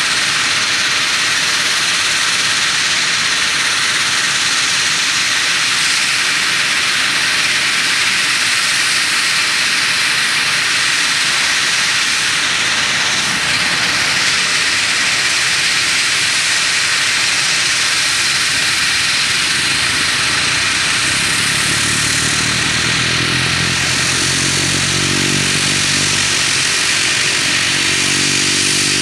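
Two Pratt & Whitney Canada PW123 turboprop engines of a Dash 8-300 running on the ground: a steady, loud turbine whine and hiss. About 21 seconds in, a low droning tone from the propellers comes in underneath and grows.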